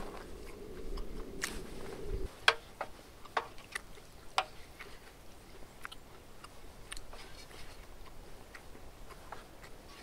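Close-up chewing and crunching of a vegetable wrap with spicy pork, with irregular crisp crunches as fresh leaves and vegetables are bitten. A steady low hum cuts off about two seconds in.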